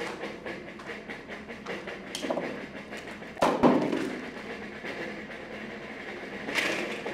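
Potato chips and bowls being handled in a messy attempt at eating: a dense run of crunching and rattling, with one loud knock about three and a half seconds in and a sharp rustle near the end.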